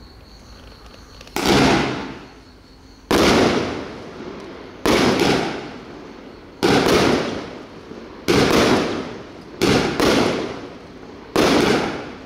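Consumer firework cake (Pyro Magic 'Jumping Jack', 19 shots) firing, a shot about every second and a half, some in quick pairs. Each shot is a sudden bang followed by a dense crackle that fades over about a second, with a faint hiss before the first shot.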